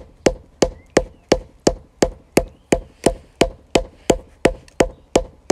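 Wooden mallet pounding a leaf folded in cloth on a tree stump, steady blows about three a second, beating the leaf's colour into the fabric (hapa zome leaf printing).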